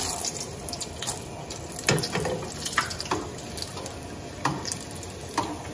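Battered chile relleno frying in shallow avocado oil in a skillet: a steady sizzle, with a few sharp clicks and pops as metal tongs and a spatula turn it.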